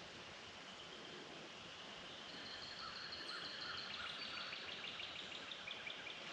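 Rural outdoor ambience: a steady high drone of insects, joined about two seconds in by rapid, repeated chirps and trills of birds or insects.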